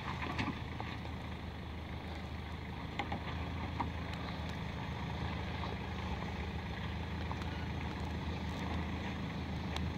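Off-road SUV engine running low and steady as the vehicle crawls down a rocky track, slowly growing louder as it approaches. A few short clacks of stones under the tyres, about three and four seconds in.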